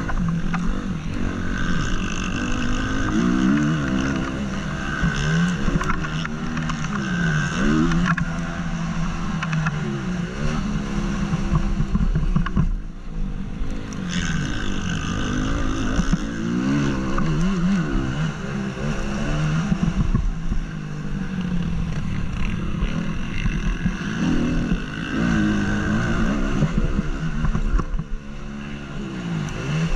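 Single-cylinder four-stroke engine of a 2014 Honda CRF 250 motocross bike, close to the helmet microphone, revving up and down again and again under hard acceleration and backing off between corners, with a short lull about halfway through.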